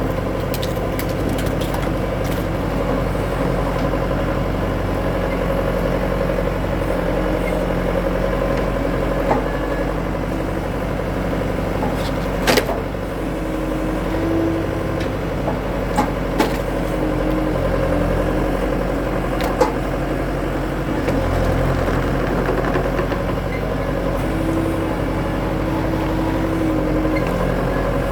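Skid steer engine running steadily, with a higher whine that comes and goes and a few sharp knocks or cracks around the middle, as it works a wood-splitting attachment.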